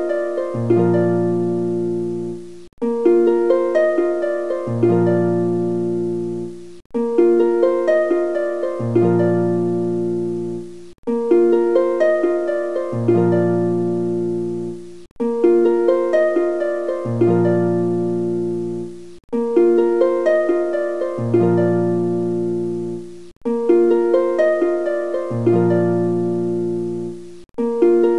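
Background music: a plucked-string, harp-like melody, one short phrase looping about every four seconds with a brief gap between repeats.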